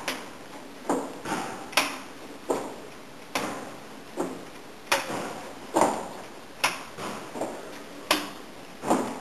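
Steady walking on a hard floor: sharp knocking steps about every 0.8 seconds, evenly paced, with a slight echo.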